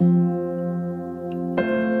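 Background music: slow, sustained keyboard chords, moving to a new, higher chord near the end.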